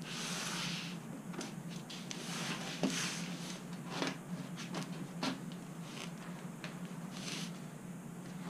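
Cardboard boxes being handled on a counter: rustling and scraping with several light knocks as a plastic-wrapped product box is lifted out of its shipping carton and set down.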